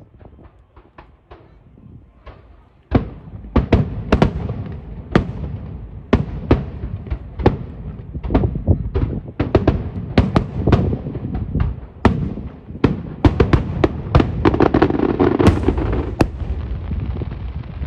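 Aerial fireworks going off: a few faint pops at first, then about three seconds in a dense barrage of sharp bangs with low rumbling in between, which stops abruptly at the end.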